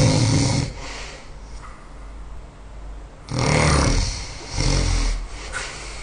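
A person snoring loudly in sleep: one snore tails off about half a second in, then after a quiet breath comes another snore in two pulls a little past halfway.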